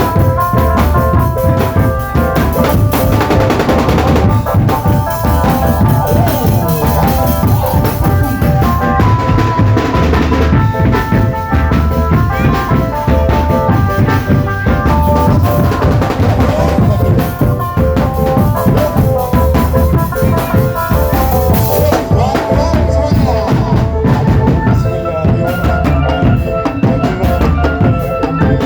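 A marching drum band playing: steady bass drum and snare drum beats under a melody of held notes.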